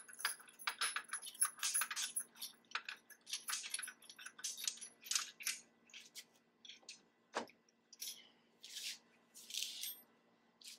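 Small metal hardware (washers and bolts) clinking and rattling in the hands as it is fitted onto a steel bike-rack frame, with a single sharper knock about seven seconds in and a few brief rustles near the end.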